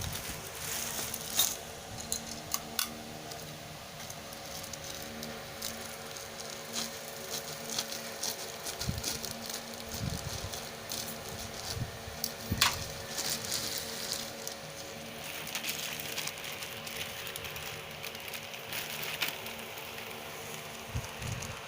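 Plastic packaging crackling and plastic parts clicking as a plastic hanging shoe rack is handled and unboxed, with scattered sharp clicks, over a steady low hum.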